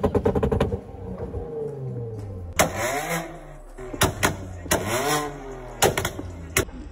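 A car engine revved twice, each rev rising and then falling in pitch, with several sharp cracks in between.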